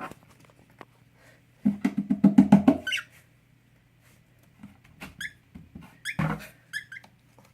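A short burst of quick, rhythmic laughter, then several short, high cockatiel chirps.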